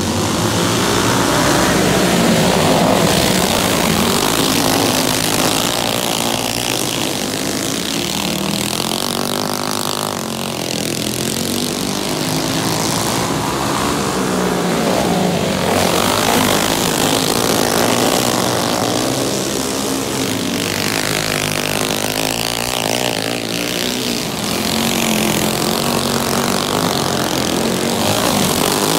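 Several racing go-kart engines running together on a dirt oval, their pitch rising and falling again and again as the karts come off and into the turns and sweep past close by.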